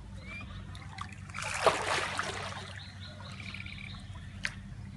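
Water sloshing and splashing as capybaras swim in a shallow pool, with a burst of splashing about a second and a half in. A bird chirps briefly twice, over a low steady hum.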